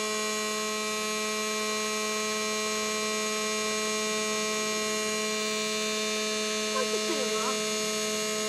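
A steady electrical hum made of several fixed tones, unchanging in pitch and level.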